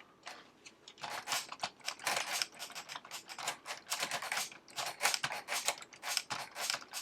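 Plastic mechanism of a LEGO Ideas Typewriter clicking: an irregular run of sharp clicks, several a second, starting about a second in.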